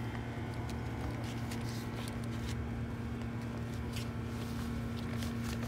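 A steady low mechanical hum, with scattered light clicks and taps.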